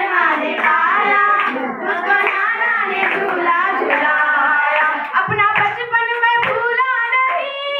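A girl singing into a microphone, amplified, with some hand clapping.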